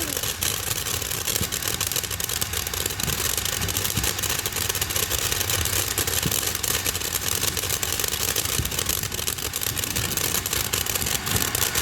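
A firework burning with a steady loud hiss, dense fine crackling and a low rumble.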